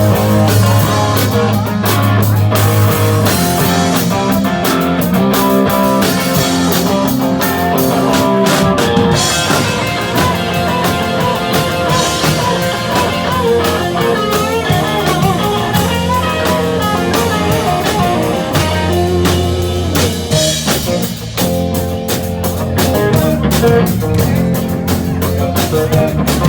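Live band playing a blues-rock tune: guitar over a drum kit, with no singing.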